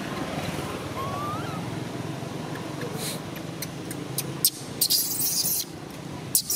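Baby long-tailed macaque calling: one short rising squeal about a second in, then loud, harsh, hissy cries in the second half, over a steady low background hum.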